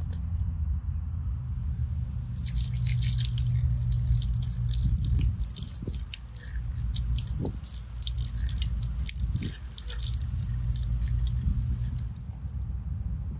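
Water dripping and splashing: a long run of small, quick splashes and drips over a steady low rumble.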